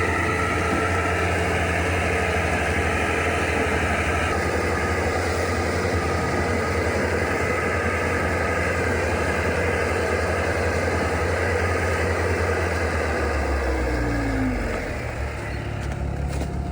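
Bobcat S76 skid steer's diesel engine running steadily under load with its snowblower attachment. Around three-quarters of the way through, the sound drops and a falling whine is heard as the machine slows down.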